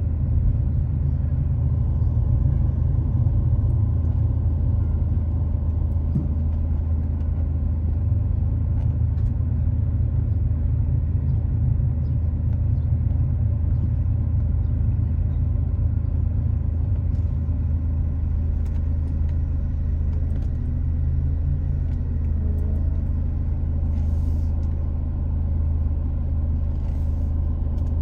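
Steady low rumble of a motor vehicle running without a break, with a couple of faint brief hisses near the end.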